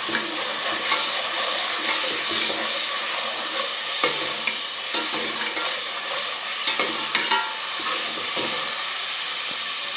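Onions, garlic-ginger paste, turmeric and salt sizzling steadily in hot ghee in a cooking pot while being stirred. A spoon knocks against the pot now and then.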